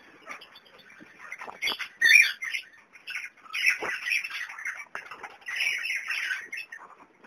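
Young kakarikis (New Zealand parakeets) chattering and squawking in a run of harsh bursts, the loudest about two seconds in.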